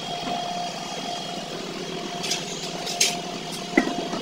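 A car wheel being hung back on the hub, giving a few sharp metallic knocks as it seats on the wheel studs, the last two loudest. A steady machine hum runs underneath.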